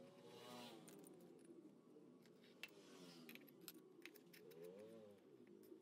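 Near silence, with a few faint light metallic clinks of hand tools being moved on a metal workbench.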